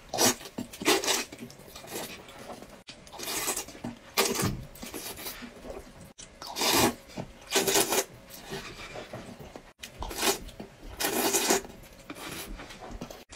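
A person slurping noodles off chopsticks, a string of short, hissing slurps, roughly one a second, with brief pauses between.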